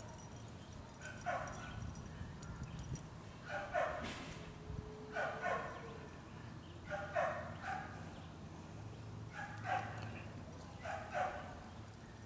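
A dog barking repeatedly: short barks, some in quick pairs, every second or two.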